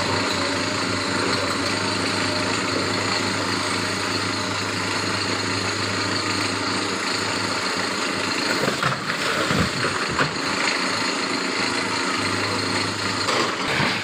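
Heavy diesel engine of an XCMG XE210 crawler excavator running steadily under load. Around the middle, a jumble of knocks comes as a bucketful of broken rock is tipped into the steel bed of a tipper truck.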